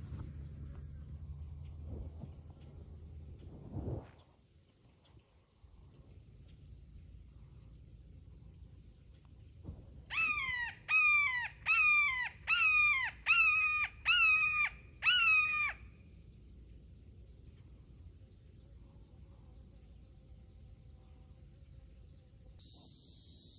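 Red-shouldered hawk calling: a run of seven loud, downward-slurring kee-ah screams about halfway through, evenly spaced. Under it runs a steady high insect hum.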